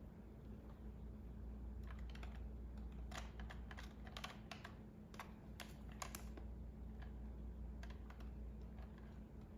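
Irregular light clicks and taps as pens and markers are handled, over a faint steady low hum.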